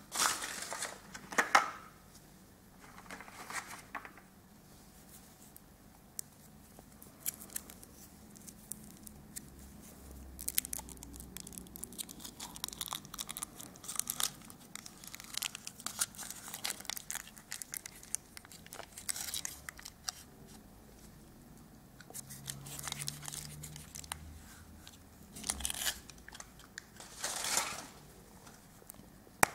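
Foil wrapper of a Kinder Surprise chocolate egg crinkling and tearing as it is peeled off by hand, in irregular rustles. There are louder snaps and clicks of plastic toy capsules at the start and near the end.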